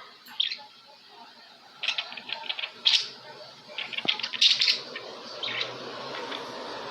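Budgerigars chirping and warbling in short bursts of quick, high chirps. A steady background hum comes in about five seconds in.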